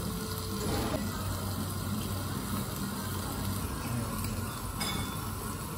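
Steady restaurant dining-room background noise: an even hiss with a low ventilation hum and faint clatter, no distinct single event.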